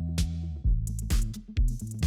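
Electronic dance music with a steady kick-drum beat, bass line and hi-hats; a cymbal crash rings out about a quarter of a second in.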